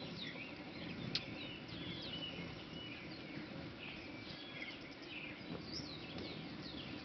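Hummingbirds at a feeder giving many short, high chirps and quick squeaky notes, overlapping throughout, with one sharp click about a second in.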